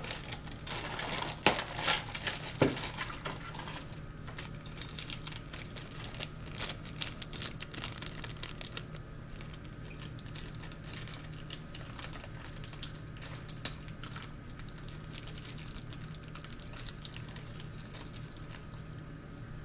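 Small screws being fitted and turned in by hand with a screwdriver: a few sharp knocks early on, then a long run of light clicking and ticking.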